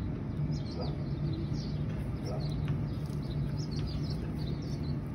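Electric inflation blower running steadily with a constant low hum as it fills a bouncy castle with air. Birds chirp over it throughout.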